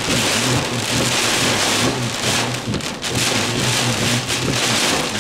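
Heavy rain beating down steadily on a car during a severe thunderstorm, with a low hum underneath.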